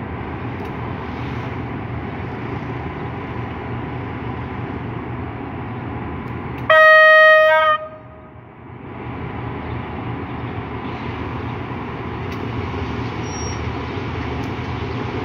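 GEA-class diesel-electric locomotive running through a station with its diesel engine and wheels rumbling steadily, and one loud blast of its air horn, about a second long, roughly halfway through. The passenger coaches then roll past with a steady rumble.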